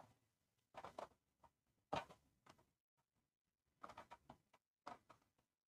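A few faint short clicks and rubs of fingers at an RC crawler wheel, screwing the wheel nut onto its hex by hand; otherwise near silence.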